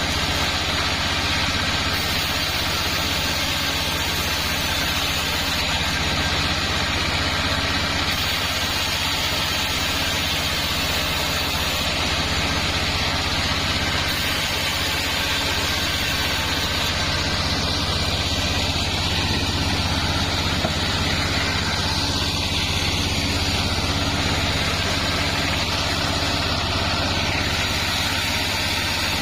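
Sawmill machinery running steadily: a continuous engine drone with a high hiss over it, unchanging throughout.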